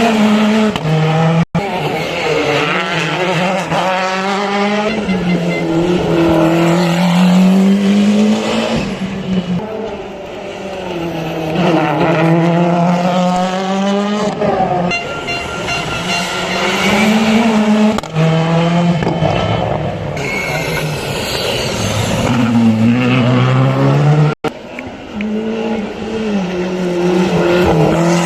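WRC rally car engines at full throttle, revving up and dropping sharply through gear changes, over and over, as the cars drive a rally stage.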